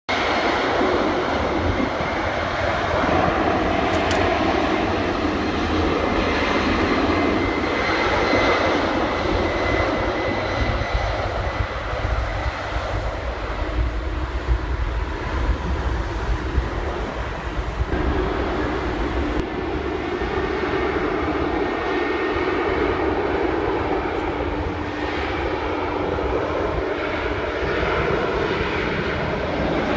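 Jet airliner on its landing approach passing close overhead: steady jet engine noise with a deep rumble and a faint high whine.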